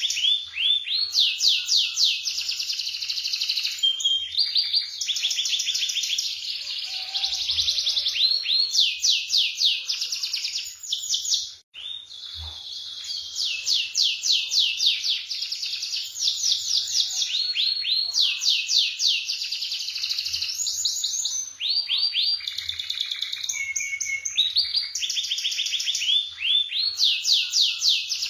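Canary singing a long, continuous high song made of fast rolling trills of rapidly repeated notes, with one brief break about twelve seconds in.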